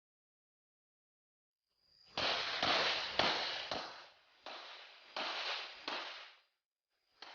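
Smith & Wesson SW1911 Pro Series 9mm pistol firing a string of shots starting about two seconds in: several in quick succession, then shots spaced roughly half a second to a second apart, and one last shot near the end.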